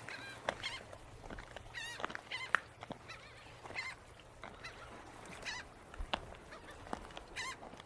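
Birds calling over and over: a string of short, wavering cries, several overlapping, with a few sharp clicks in between.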